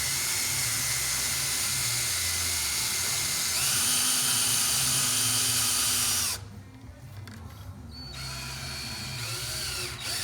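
Drill gun turning the crankshaft of a Beamnova wire stripper while copper wire is fed through its blade to strip off the insulation. The drill's pitch steps up about three and a half seconds in, stops abruptly about six seconds in, and then runs again more quietly near the end.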